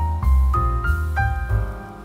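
Background music: a melody of single notes climbing step by step, about three a second, over a low bass.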